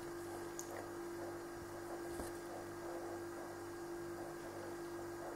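Faint, steady electrical hum holding one pitch, with a light click about two seconds in.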